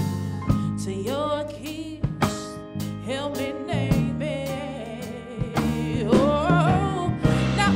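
Live soul-gospel song: a woman's voice singing with vibrato and bending notes over a band, with drum kit hits and cymbals keeping time.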